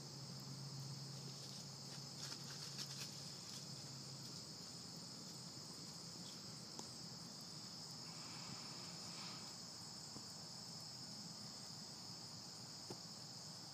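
A steady, high-pitched insect chorus trilling without a break.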